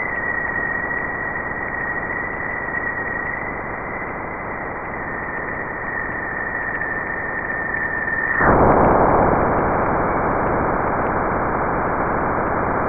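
Sonified Juno Waves electric-field data of the spacecraft crossing Jupiter's bow shock: a steady static hiss with a thin high tone from the upstream plasma oscillations. About eight and a half seconds in the tone cuts off and the hiss suddenly turns louder and denser as the bow shock is crossed.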